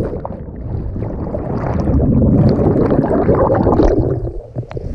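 Muffled bubbling and rushing of lake water, heard underwater right after a plunge from a cliff jump. It swells through the middle, then gives way to surface splashing as the camera breaks the surface late on.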